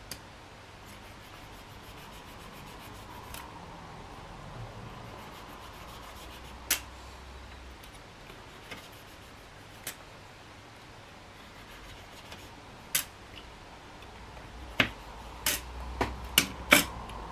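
Knife blade trimming excess leather from a washer on a metal sling-mount stud: faint cutting and scraping, with scattered sharp clicks that come thicker near the end.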